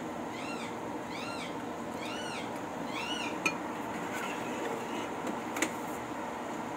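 A small animal's short high calls, four of them about one a second, each rising then falling in pitch. Two sharp clicks follow, about three and a half seconds in and again near the end.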